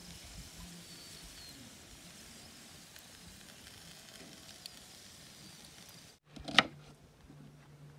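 Whole animal carcass roasting over charcoal on a wire grill: a soft, steady sizzle from the coals and cooking meat. About six seconds in it cuts off, and a sharp knock follows, then a low steady hum.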